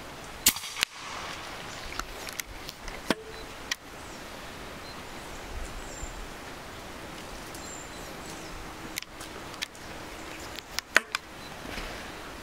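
Sharp clicks and knocks from a .22 PCP air rifle, the EDgun Leshiy 2, being shot and handled. The two loudest sharp cracks come about half a second in and again near eleven seconds, with smaller clicks between them. Faint bird chirps sound over the outdoor background noise.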